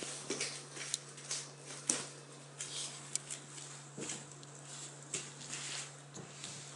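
Scattered light taps, knocks and rustles of toddlers handling a wicker basket and a plastic climber, over a steady low hum.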